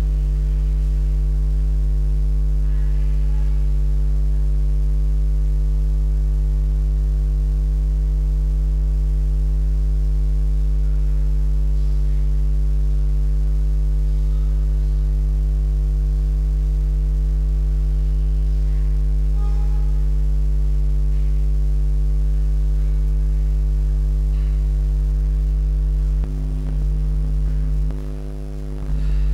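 Steady electrical mains hum and buzz, an unchanging low drone with overtones, dipping briefly in level near the end.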